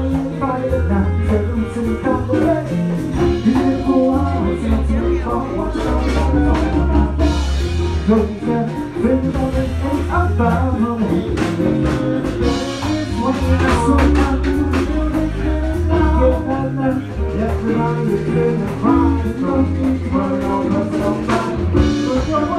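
Brass funk band playing live, with a drum kit and a strong bass line keeping the groove under the melody.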